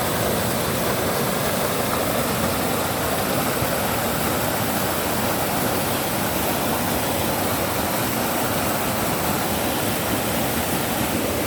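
Steady rush of a waterfall and its stream, a constant even roar of falling water.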